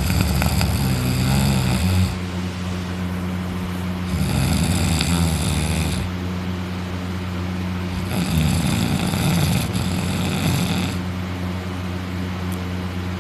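Very loud snoring from a man sleeping on his back with his mouth open. There are three long snores about four seconds apart, with quieter breaths between them.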